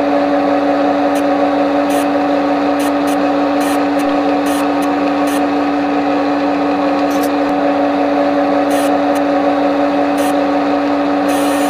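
Synthesized machine sound of a CNC lathe simulator running a turning program: a steady, even hum, broken every second or so by short bursts of high hiss.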